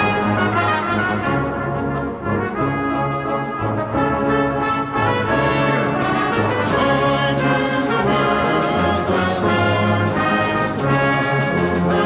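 Brass band playing an instrumental passage of a Christmas carol medley, with full sustained chords from trombones and cornets/trumpets over a low brass bass line.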